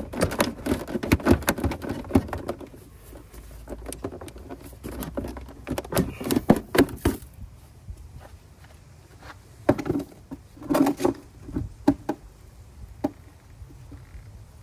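Clicks, knocks and clatter of a part in the engine bay being worked loose and lifted off by hand, coming in several bursts.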